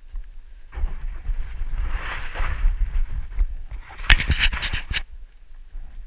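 Footsteps scrambling up a loose, dusty rock trail: boots scraping and crunching on grit, with rumble from wind and rubbing on the microphone. Near the end comes a quick run of about seven sharp clicks.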